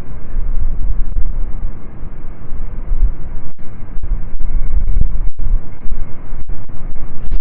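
Strong wind buffeting the microphone, a loud, muffled rumble heavy in the low end, with a few brief dropouts in the second half.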